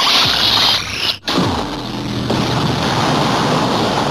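Synthesized finishing-attack sound effect from a transformation belt: a loud rushing noise that cuts out briefly about a second in, then comes back with a falling low tone and carries on as a steady rush over a low hum.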